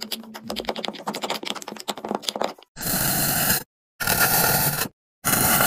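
Kinetic sand crunching with a dense run of fine crackles as a wooden stick presses into it. Then come three separate bursts of gritty scraping as a block of sand is cut and pushed in a metal mould, each stopping abruptly.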